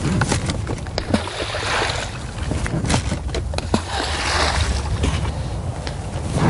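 Balls of groundbait thrown by hand splashing down in the river, over a steady low rumble, with several sharp knocks scattered through.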